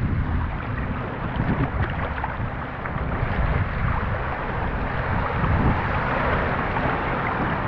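Wind buffeting a camera microphone, over the wash of small waves running up shallow surf.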